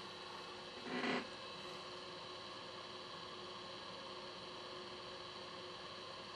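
Hot air rework station running at minimum airflow, a steady hum, with one short louder sound about a second in.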